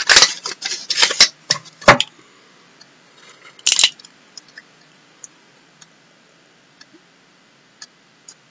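Handling noises of small objects: a quick run of clicks and rustles, then a short crackle a little over three and a half seconds in, then only a few faint clicks.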